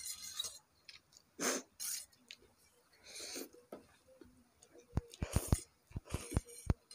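Eating noises from people eating very spicy instant noodles: short breathy sniffs and mouth sounds, then a quick run of about seven knocks near the end.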